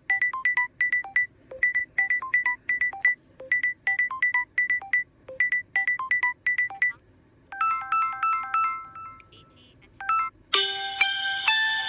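Samsung Galaxy A52 5G ringtones played one after another: a quick repeating pattern of short electronic notes for about seven seconds, then a slower chiming melody, then a fuller ringtone starting near the end.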